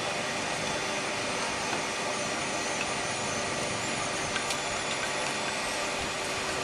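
Vacuum cleaner motor running steadily, a constant whirring noise with a faint steady hum.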